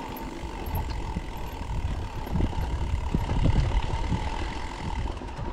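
ToSeven DM01 mid-drive e-bike motor pulling at full assist (level 5) on a dirt climb: a steady faint whine over the low rumble of tyres and wind on the microphone. The rumble is loudest about two to four seconds in.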